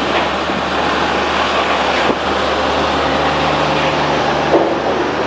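Sawmill machinery running: a loud, steady industrial noise with a low hum and a few steady tones, and a few short knocks.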